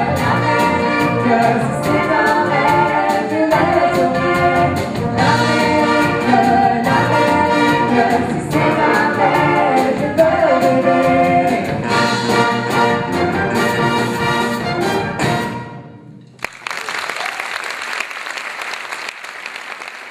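A music ensemble with singing and a steady drum beat, timpani among the percussion, plays to the end of a song; the music cuts off about three-quarters of the way in, and the audience breaks into applause.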